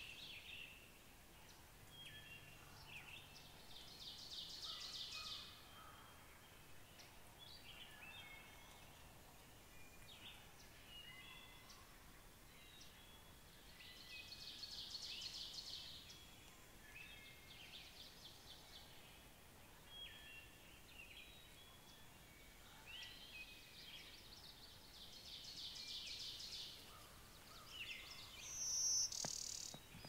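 Faint songbird chorus. A buzzy, rapidly pulsed song of about a second and a half repeats roughly every ten seconds, with scattered short chirps and calls between, and a louder high call near the end.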